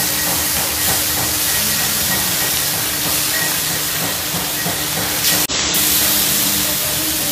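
Oil sizzling steadily around hilsa fish steaks and eggplant slices shallow-frying on a large flat iron griddle. The sizzle cuts out for a moment about five and a half seconds in.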